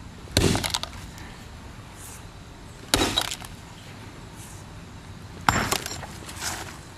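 An axe head striking down on a cell phone lying on a stone slab: three sharp blows about two and a half seconds apart, each with a short clatter of breaking pieces.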